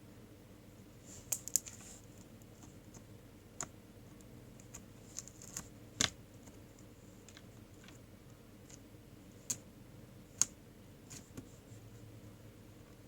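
Scattered sharp clicks and taps at irregular intervals, the loudest about six seconds in and again near ten seconds, over a faint steady hum.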